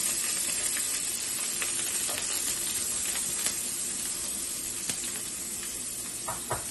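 Chopped onion sizzling steadily in hot oil in a frying pan, just added to whole spices and curry leaves, with a few light clicks.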